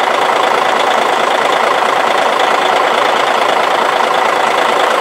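Hyundai Universe Noble coach's 12.7-litre six-cylinder diesel engine idling steadily. It runs lively, which the dealer takes for an engine in good condition.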